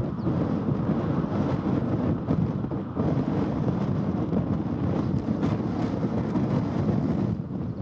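Twin-engine jet airliner's engines at takeoff thrust during the takeoff roll: a steady rumble mixed with wind buffeting on the microphone.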